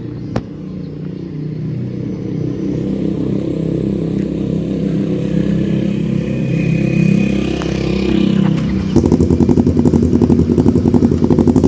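Yamaha MT-03 motorcycle with an SC Project full exhaust running and growing steadily louder as it approaches. From about three-quarters of the way in, its exhaust pulses come through much more strongly. A single sharp click sounds shortly after the start.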